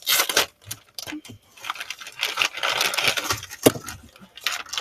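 Plastic packaging crinkling and rustling as it is handled, with scattered sharp clicks and one louder snap a little after three seconds in.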